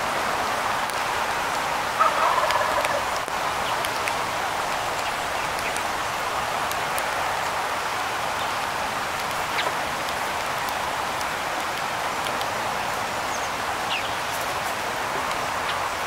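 Light rain pattering steadily on an umbrella overhead. About two seconds in, a bird gives one short call.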